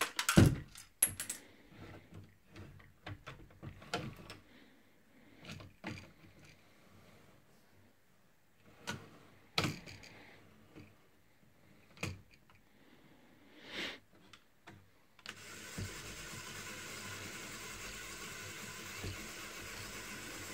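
Plastic Lego bricks clicking and knocking as the custom Lego minigun is handled. About fifteen seconds in, its motor starts and runs steadily, spinning the barrel cluster.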